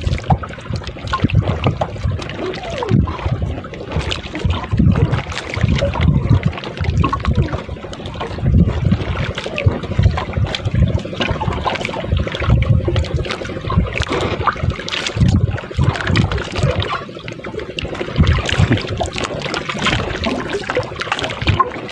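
Sea water lapping and sloshing against the hull of a small boat, in uneven surges.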